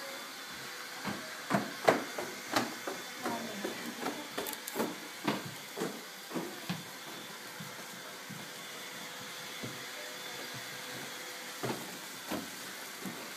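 Steady whir and hiss of an electric fan blowing up a long polyethylene tube, with a string of short knocks and rustles over the first half and two more near the end.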